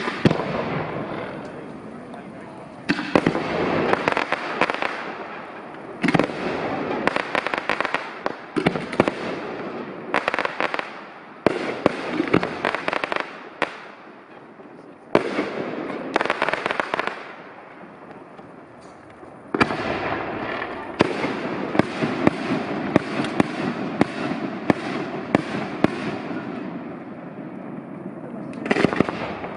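Fireworks display: aerial shells bursting one after another with dense crackling, in loud waves that start suddenly every few seconds with quieter lulls between.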